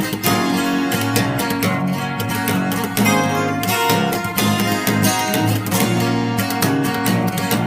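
Song instrumental led by strummed acoustic guitar, with a steady beat and bass.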